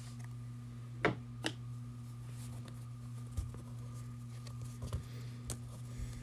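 Trading cards and foil card packs handled on a tabletop: a few faint taps and rustles, the clearest about a second in, over a steady low hum.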